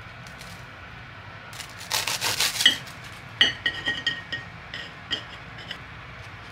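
Serrated bread knife sawing through a thick toasted sandwich, the blade scraping through the crisp crust. The loudest strokes come close together about two seconds in, then a run of shorter cuts fades out near the end.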